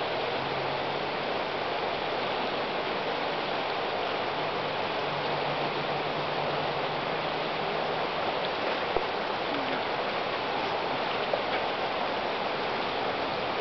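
Shallow river riffles rushing steadily, with a couple of faint clicks partway through.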